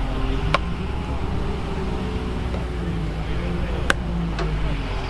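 Diesel engine of heavy construction machinery running steadily, with two sharp knocks, one just after the start and one about four seconds in.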